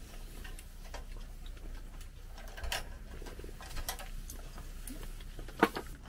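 Scattered light clicks and clinks of chopsticks and stainless steel cups while eating, with one sharper click near the end.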